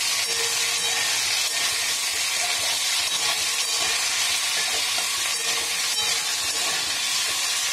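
Cubes of boiled potato frying in hot mustard oil in a kadhai, a steady sizzle, while a spatula stirs them round the pan.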